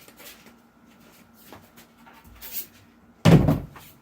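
A few light knocks and rustles of handling, then one heavy, deep thud about three seconds in, as something is set down or dropped onto a hard surface.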